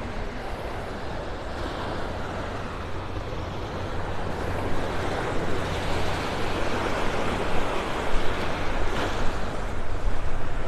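Wind rumbling on a phone microphone over the steady wash of small waves on a sandy beach, growing louder about halfway through.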